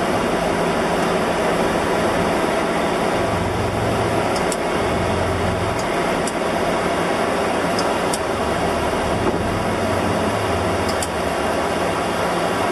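Airbus A300-600R flight-deck noise in flight: a steady rushing of airflow and air conditioning, with a low engine hum that swells and fades underneath, the engines set at high thrust.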